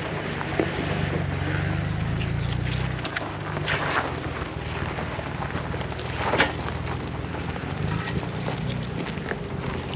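An off-road 4x4's engine running at low revs as it crawls over a rocky trail, with scattered knocks and crunches from rocks under the tyres; the loudest knocks come about four and six and a half seconds in.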